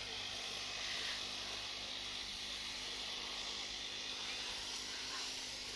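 Orchard spray lance hissing steadily as a fine mist of pesticide is sprayed onto the fruit trees, with a steady low hum underneath.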